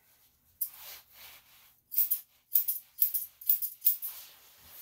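Grooming scissors snipping through a dog's long tail hair, a string of about ten quick, crisp snips.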